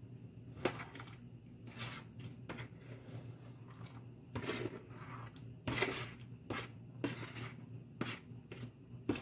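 A plastic slotted spatula scraping chopped onion and tomato off a plastic cutting board into a pot, in a series of irregular scrapes, two of them longer, about four and six seconds in.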